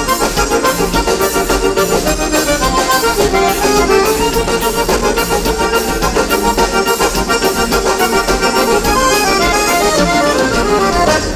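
Accordion (gaita) playing lively instrumental gaúcho dance music with a steady beat, cutting off just at the end.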